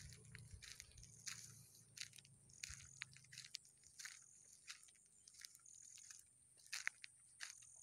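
Faint, irregular crackling and crunching of dry grass and brush as someone walks through it, with a steady high-pitched tone running underneath.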